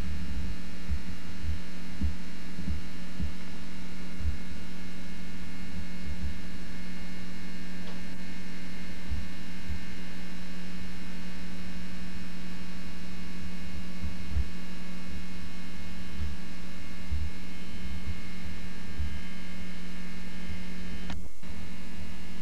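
Steady electrical mains hum on an old camcorder recording, with a brief click about a second before the end.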